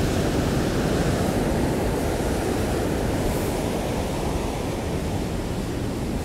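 Hurricane-driven ocean surf washing in, a steady rushing wash, with wind rumbling on the microphone.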